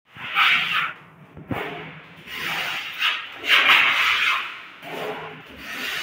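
Cement plaster being worked onto a wall by hand: a plasterer's tool scraping across the wet render in four strokes, with one sharp knock about a second and a half in.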